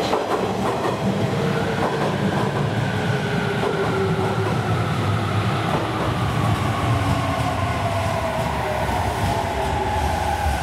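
JR Kyushu 817 series electric commuter train pulling into the platform: steady wheel rumble on the rails, with the traction motors' whine sliding slowly down in pitch as it brakes to a stop.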